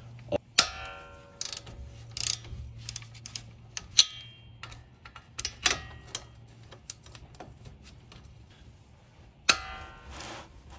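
A 13/16-inch socket on a long ratchet handle being fitted over the nut of a front strut-to-knuckle bolt and worked: scattered metallic clicks and clinks, with sharp clanks that ring briefly about half a second in, at about four seconds, and near the end.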